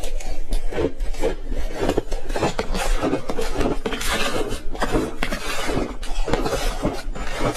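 A person chewing ice: rapid, continuous crunching.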